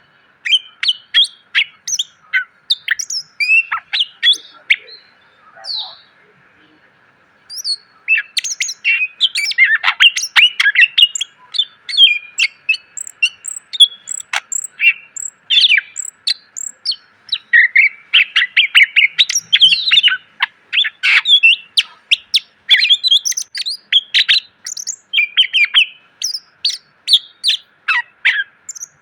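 Cucak ijo (green leafbird) singing a fast, varied song of sharp chirps, short whistles and rapid-fire notes, with a pause of a few seconds early on before it resumes densely.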